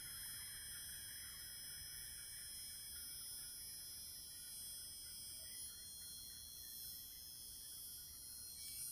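Faint, steady background hiss with no distinct sound event.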